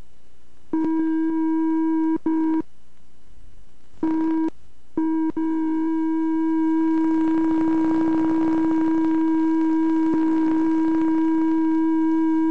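A steady, loud electronic tone, like a telephone busy signal, cutting in and out several times and then holding unbroken from about five seconds in, with hiss building underneath. It is the unexplained noise on the old film that comes with the face's appearance.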